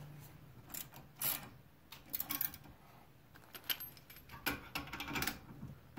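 Metal tools and hardware clinking and rattling as they are handled: a scattered series of light clinks, spread through the few seconds with a small cluster near the end.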